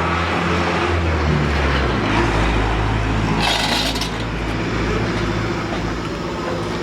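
Heavy diesel truck engine running at idle, its pitch shifting about two seconds in, with a short burst of air hiss near the middle.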